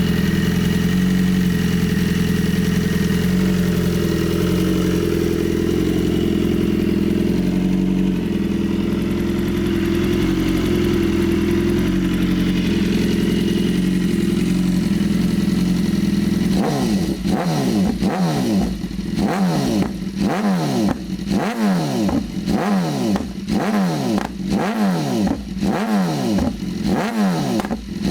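BMW S 1000 RR HP4's inline-four engine idling steadily, then, after about sixteen seconds, blipped again and again: a quick run of short revs, each rising sharply and falling straight back, roughly one to two a second.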